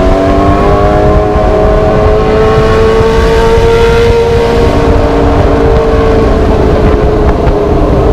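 Sport motorcycle engine with an aftermarket semi-pure-sound exhaust, held at steady high revs. Its pitch climbs slowly for about four seconds, then eases gently back down, with heavy wind rumble on the microphone.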